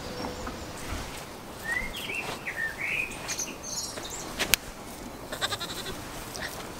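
A young goat bleating once, a high wavering call about two seconds in. A sharp click comes a couple of seconds later.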